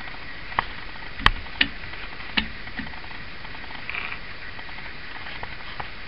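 Sharp metal clicks of a type shuttle being seated and adjusted on the hub of a Hammond Folding Multiplex typewriter. There are four distinct clicks in the first two and a half seconds, the loudest a little over a second in, then a few fainter ticks.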